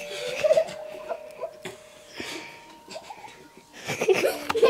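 Children's stifled, breathy giggling, in short hushed bursts that grow louder near the end.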